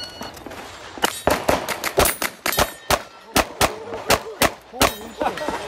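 A short electronic start beep, then rapid pistol fire on a practical-shooting stage: about fourteen shots over roughly four seconds, with steel plates ringing when hit.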